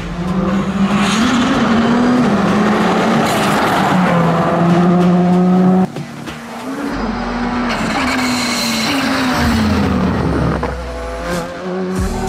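Škoda Fabia rally car's engine at high revs on a fast run, the pitch climbing and dropping sharply with each gear change. The sound cuts abruptly about six seconds in to another pass, with a deeper rumble under the engine for a few seconds.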